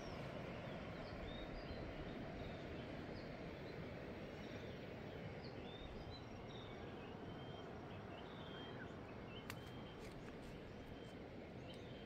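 Birds chirping in many short, scattered calls over a steady low background rush of outdoor noise.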